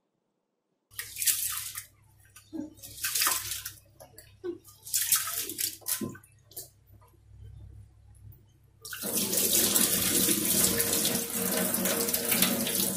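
Rice and lentils being washed by hand in a bowl of water in a stainless steel sink: irregular swishing splashes, then from about nine seconds in a steady rush of water running into the sink.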